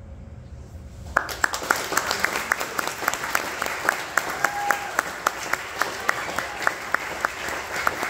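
An audience applauding, beginning about a second in, with one clapper close by giving sharp, even claps about four times a second over the crowd's clapping.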